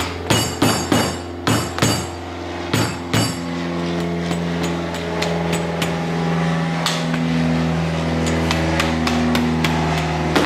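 Soft-faced mallet tapping metal tubes down into a plywood welding fixture: seven sharp taps in quick succession over the first few seconds, then lighter, scattered taps. A steady low hum runs underneath.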